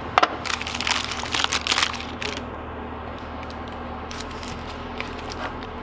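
Thin plastic wrapper crinkling as it is peeled off a block of butter, dense for the first two seconds, then a few faint taps as the butter is set on a plastic butter dish.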